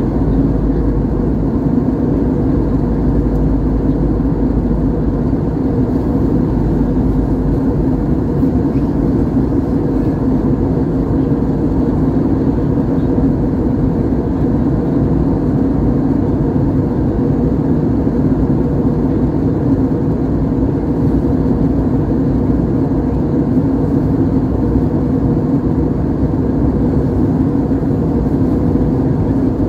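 Steady in-flight cabin noise of an Airbus A320-family airliner: jet engine drone and airflow rush with a steady low hum, unchanging throughout.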